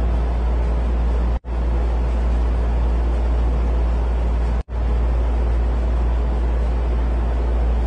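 A steady, loud low rumble with an even hiss above it, cut off abruptly for a moment twice: about a second and a half in and again near the five-second mark.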